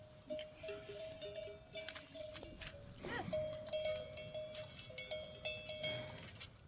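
Bells on grazing livestock ringing in short repeated notes at two steady pitches, with scattered clinks and a short sliding call about three seconds in.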